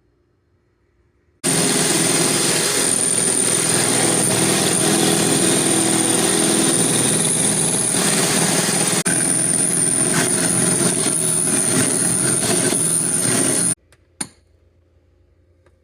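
Electric mixer running steadily at high speed, whipping egg whites for meringue, with a steady high whine; it starts suddenly a little over a second in and is switched off about two seconds before the end, followed by a click.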